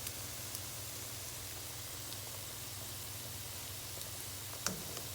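Butter sizzling in a frying pan under slices of French toast: a steady, even hiss with a few faint crackles and a light tap near the end.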